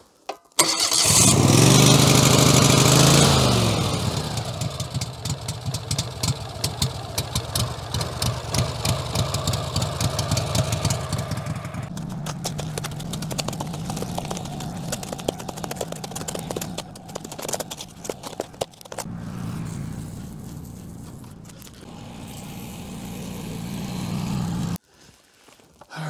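Wood-Mizer LT15 Go sawmill's gasoline engine starting from cold in the snow, revving up and back down, then running steadily while it warms up, with irregular knocks and scrapes over it. The sound cuts off abruptly near the end.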